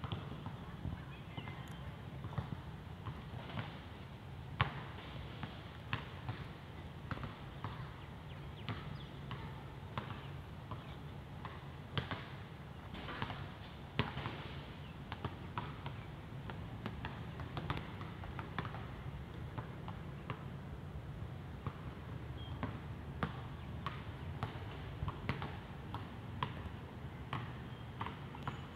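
Scattered light taps and clicks at an irregular pace over a steady low hum.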